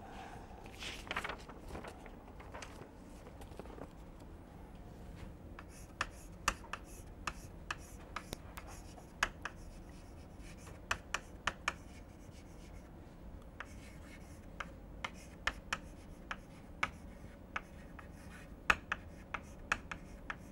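Chalk writing on a chalkboard: faint scratching broken by short, sharp taps as each stroke starts. The taps are irregular and come thick from about six seconds in.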